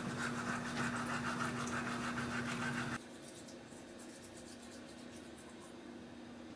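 Teeth being brushed with a toothbrush: a quick, scratchy scrubbing rhythm over a steady low hum. The louder part with the hum cuts off suddenly about three seconds in, and quieter brushing strokes go on after it.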